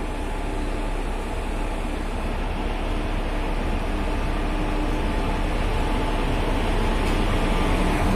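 WAG-5 electric locomotive drawing slowly nearer along the platform: a steady hum with rumble from the running gear, growing gradually louder as it closes in.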